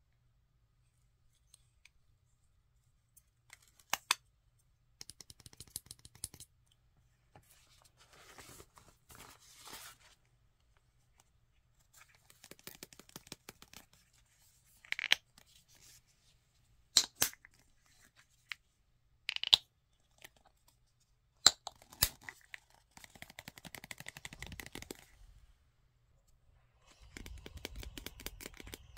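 Hands handling cosmetics packaging, first a lipstick case and then a plastic squeeze tube, with scattered sharp clicks and taps between stretches of scratchy rustling and crinkling.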